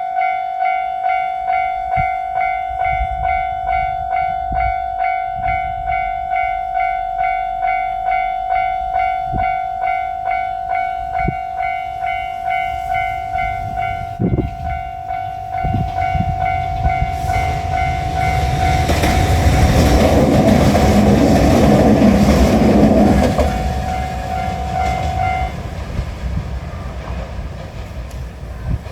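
Japanese railway crossing alarm ringing its steady, rapidly pulsing kan-kan tone while a diesel railcar passes over the crossing. The train's rumble and rail clatter swell to the loudest part about two-thirds of the way in, then fade. The alarm stops shortly after the train has gone.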